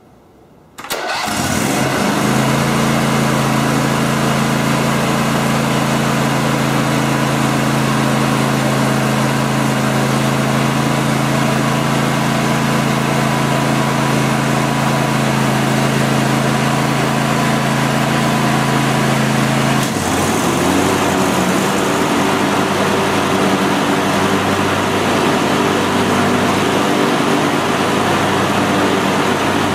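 John Deere LX288 lawn tractor's swapped-in engine starting within about a second and running at a steady speed. About twenty seconds in its sound changes as the mower deck blades are engaged, putting the engine under load.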